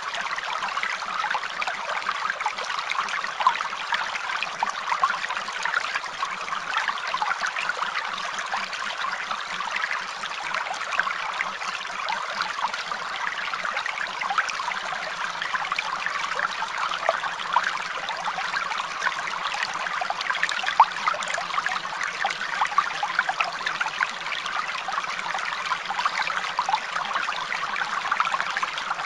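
Steady running water, like a small stream trickling, with no break or change.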